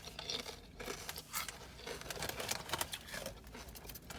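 Paper sandwich wrapper crinkling and rustling in short, scattered crackles.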